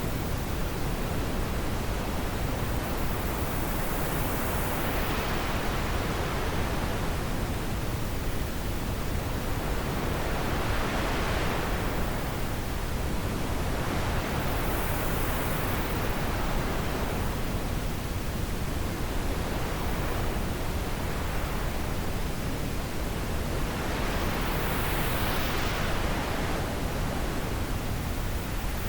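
Wind blowing, a dense, even rushing noise that swells and eases in slow gusts every several seconds.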